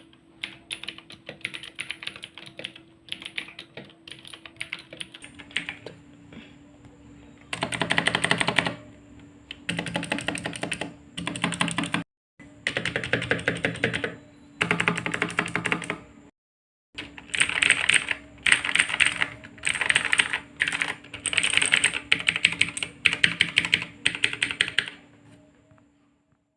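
Armageddon MKA-61C mechanical keyboard being typed on: lighter, scattered key clicks for the first few seconds, then rapid bursts of typing about a second long with short pauses between them. The sound cuts out completely twice for a moment.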